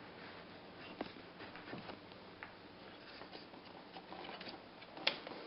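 Quiet room hiss with a few faint, scattered clicks and taps, the loudest just after five seconds in.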